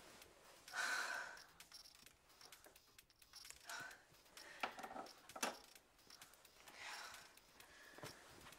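Soft rustling of bedding and breathy sighing, with two sharp clicks around the middle as a pair of glasses is set down on a nightstand.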